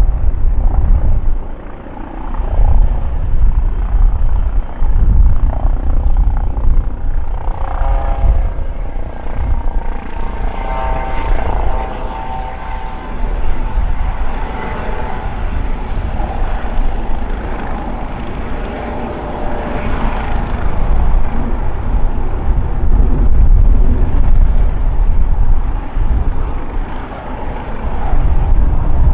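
Airbus EC135 police helicopter, with twin Pratt & Whitney PW206B turboshaft engines, flying overhead: continuous rotor and turbine noise with a deep rumble underneath. A whine of several steady tones rises out of it about a third of the way in and fades again past the middle.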